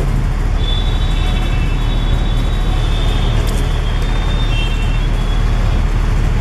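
Steady low rumble of motor traffic, with a thin high whine sounding through the middle of it for a few seconds.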